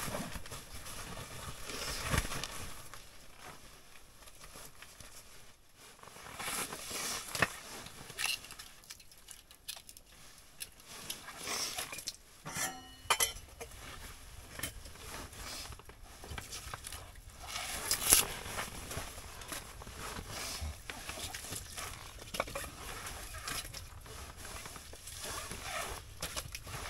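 Firewood and birch bark being handled beside a small wood stove: irregular knocks, light clatter and rustling, with one sharper knock about eighteen seconds in.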